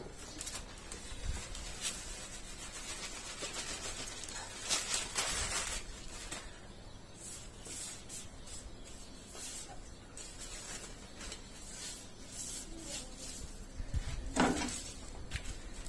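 Rustling of a newspaper sheet and light scraping handling noises, coming and going, with a short louder sound near the end.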